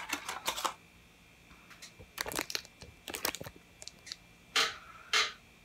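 Plastic packaging crinkling and rustling in short bursts as unboxed phone accessories are handled, with two louder crackles near the end.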